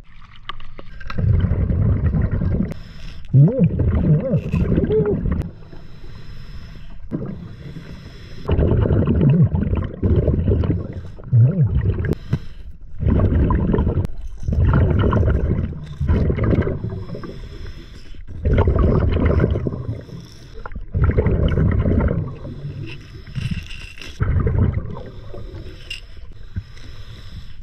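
Scuba diver's exhaled breath bubbling out of the regulator underwater, heard through the camera's underwater housing: repeated bubbling, gurgling bursts of a second or two, with quieter inhalations between them.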